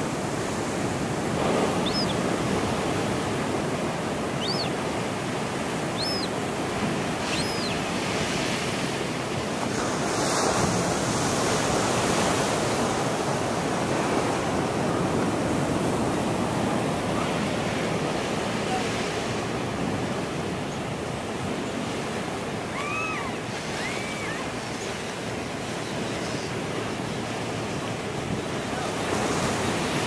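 Surf breaking steadily on rocks, with a juvenile gull's short, high, thin begging cries: four spaced through the first eight seconds, then two lower calls a little over twenty seconds in.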